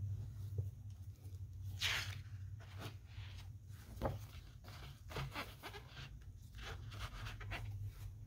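Faint rustling and soft handling clicks, with a brief swish about two seconds in, over a low steady hum.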